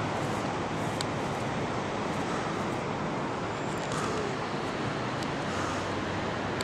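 Steady road noise of a moving vehicle, an even rushing hiss with a faint low hum underneath.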